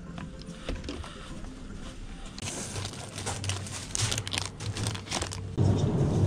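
Crinkling and rustling of handled packaging, in quick irregular strokes, then a car engine's steady low hum sets in suddenly near the end and is the loudest sound.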